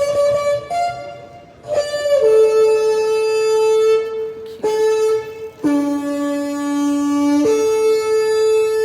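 Shofar blown in long held blasts with short breaks between them. The pitch steps between a few notes, dropping to a lower blast for a couple of seconds past the middle before returning to the middle note.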